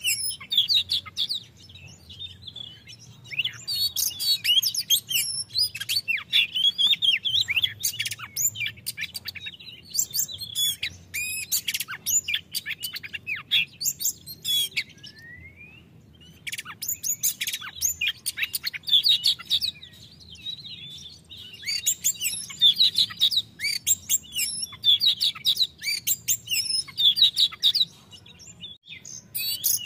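Oriental magpie-robin (kacer) singing loudly, a rich, varied song of whistles, trills and chirps delivered in long phrases with short pauses between them.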